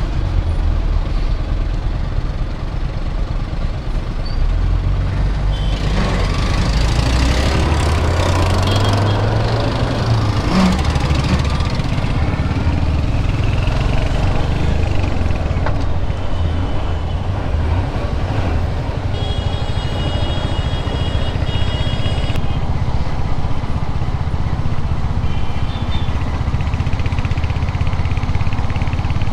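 Road traffic heard from a moving motorcycle: engine and road noise throughout, the engine pitch rising as it accelerates about six seconds in. A vehicle horn honks for a couple of seconds about two-thirds of the way through, and again briefly a little later.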